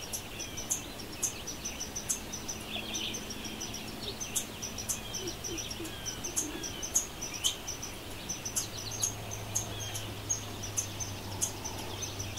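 Forest ambience: several birds singing and chirping, with a fast, high, repeated ticking chirp running throughout.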